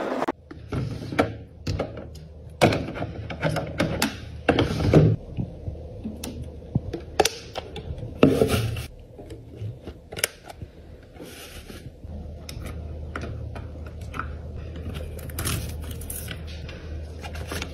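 Clicks, taps and rustles of small plastic items and packaging being handled, ASMR style. A low steady hum sits under them in the second half.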